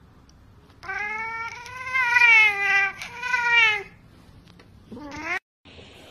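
Domestic cat yowling: one long, wavering, drawn-out yowl of about three seconds, followed about five seconds in by a short meow that rises in pitch.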